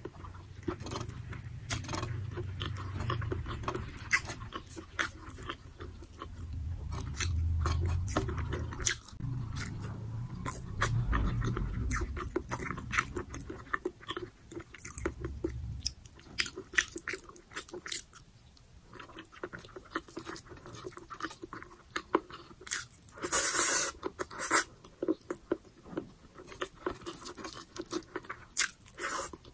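Close-miked chewing of braised pork belly and rice, with many small wet mouth clicks. A single louder noisy burst stands out about three-quarters of the way through.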